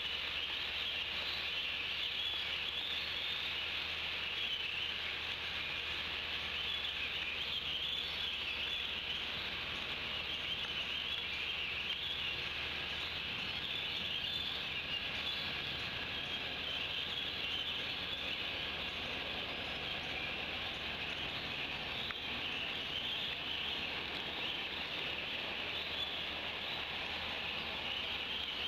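Steady rain falling on the leaves and the nest, a continuous even hiss.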